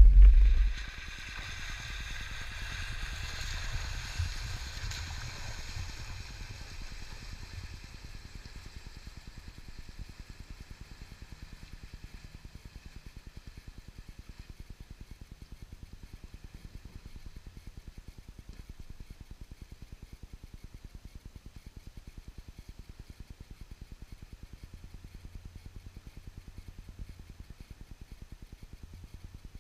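A Jeep Wrangler driving away along a flooded trail, its engine fading to a faint steady hum. A heavy thump comes right at the start.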